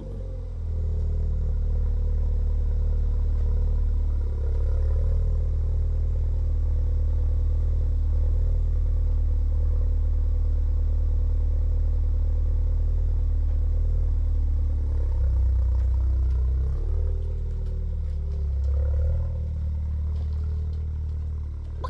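Ford Fiesta ST180's 1.6-litre turbocharged four-cylinder engine running steadily while the car is driven, with its note shifting briefly a few times.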